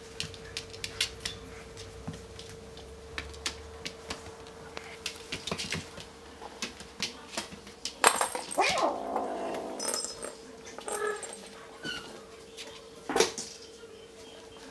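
Bengal kitten growling over a toy ball, with a louder rasping growl a little past the middle, amid scattered light taps and clicks of the ball and paws on the floor.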